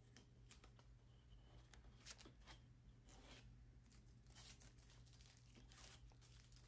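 Faint ripping and crinkling of blue painter's tape being peeled off a cardboard template and crumpled by hand, in a few short, irregular rustles over a low steady hum.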